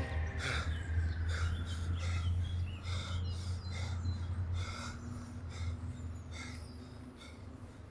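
A man breathing hard in short, sharp breaths about two a second while squatting with a 36 kg sandbag. A steady low hum runs underneath and drops away about two-thirds of the way through.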